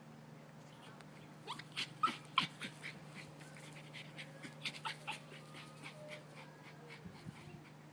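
Dog yipping and whimpering in a rapid string of short, high-pitched calls, loudest about two seconds in and trailing off into fainter whines. A steady low hum runs underneath.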